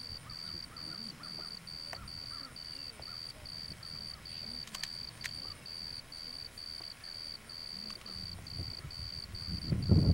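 High, evenly pulsed insect chirping at about three chirps a second, steady throughout. A louder burst of low rumbling rises near the end.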